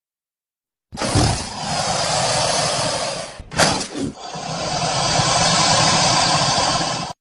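Monster roar sound effect: two long, rough, hoarse roars, the first about two and a half seconds and the second about three, with a short burst between them, cutting off sharply.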